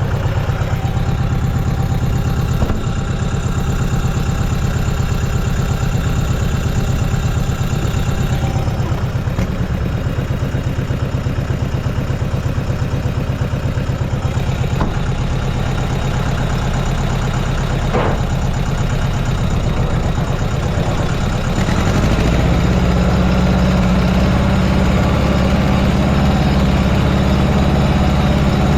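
A vehicle engine running steadily close by. About three quarters of the way through it gets louder and deeper, as if throttled up or put under load.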